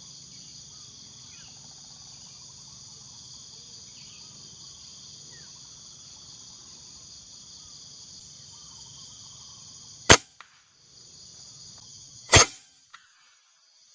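Two sharp shots from a PCP air rifle, about two seconds apart near the end, over a steady high-pitched drone of insects.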